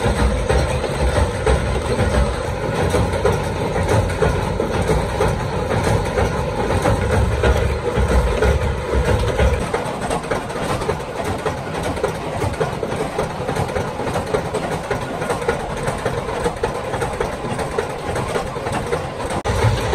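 Metal-forming machinery running steadily for lamp screw shells, with a fast, dense clatter over a continuous hum. A deep low rumble drops away about halfway through, leaving the clatter.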